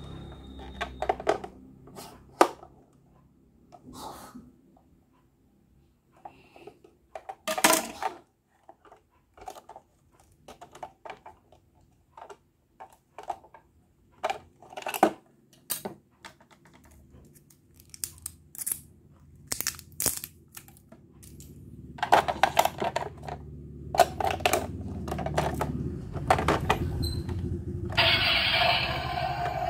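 Scattered clicks, knocks and scrapes of a plastic Tayo the Little Bus toy being handled and turned over on a table. Near the end a roof button is pressed and the toy's built-in electronic sound starts playing steadily.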